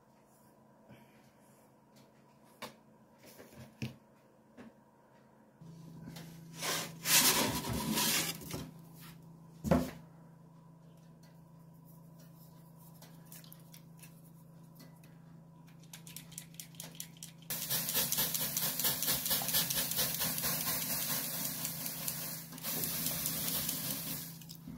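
Bread deck oven running with a steady hum, a few knocks and clatters as the scored baguette goes onto the hot deck, then several seconds of loud hissing and crackling as steam is put into the hot oven chamber for baking.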